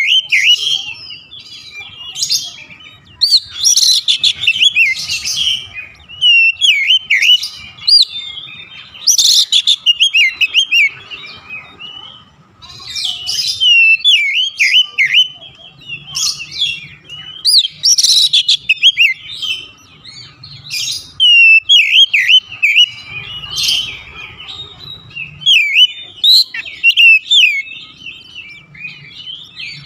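Oriental magpie-robin singing loudly in phrase after phrase of quick rising and falling whistles and chattering notes, with short pauses between phrases.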